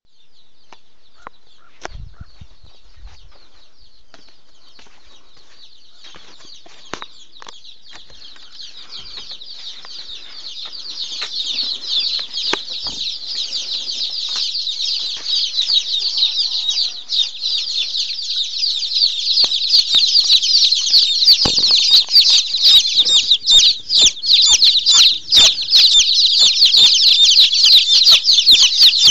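A dense chorus of rapid, high-pitched chirping from many birds at once, faint at first and growing steadily louder from about a third of the way in until it is loud and continuous.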